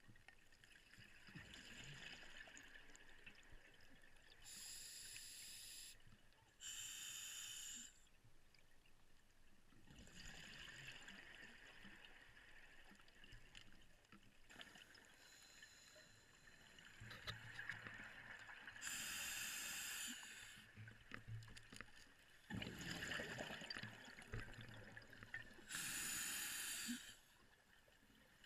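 Scuba diver breathing underwater through a regulator: a faint steady hiss broken by about five loud rushing bursts of exhaled bubbles, each lasting a second or so.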